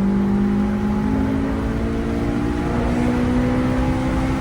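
Car engine under way with a steady drone, its pitch rising slowly as it accelerates.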